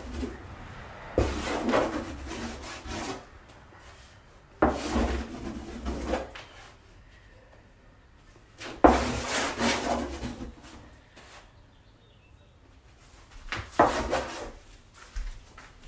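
Charcoal stick scribbling across an encaustic-primed wooden panel: four bursts of scratchy rubbing, a few seconds apart.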